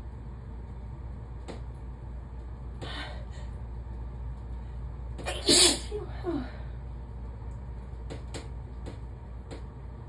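A person sneezes once, loudly, about five and a half seconds in, with a short trailing sound just after. A softer breath comes a couple of seconds before.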